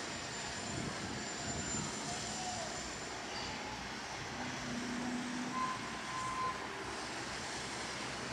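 Steady outdoor city ambience: an even, rumbling wash of noise, with a few faint short tones about halfway through.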